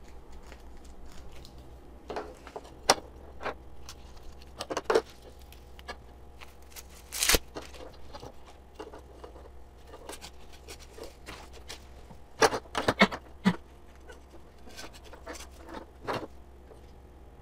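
Hands working the plastic pipes and mesh fabric pad of a cat window perch: scattered clicks, knocks and rustles as the pipes are fitted and slid into the pad's sleeves. The sharpest knock comes about seven seconds in, and a quick run of clicks follows around twelve to thirteen seconds.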